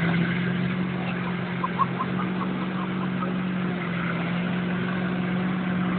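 Diesel tractor engine running at full throttle at a steady pitch while dragging a weighted pulling sled, working under heavy load.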